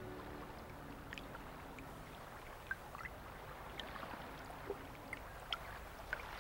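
Faint sea water lapping gently, with a dozen scattered small drip-like plops.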